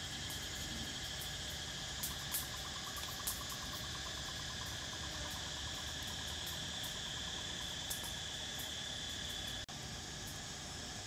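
Insects chirring in a steady forest chorus: one continuous high-pitched tone, joined in the middle by a lower, rapidly pulsing trill, with a few faint ticks.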